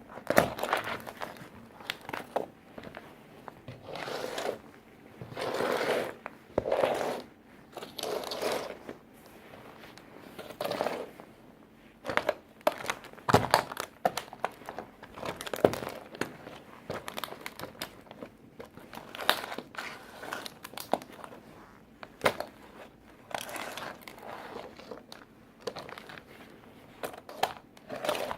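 Plastic toy tractor being stomped and crushed under work boots: irregular crunching and crackling of breaking plastic, with sharp snaps in between.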